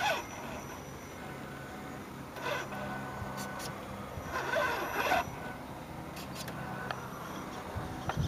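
1/10-scale Axial SCX10 RC rock crawler creeping over sandstone, its small electric motor and geartrain giving a low, steady whine. There are a few light clicks, and a sharp knock comes near the end.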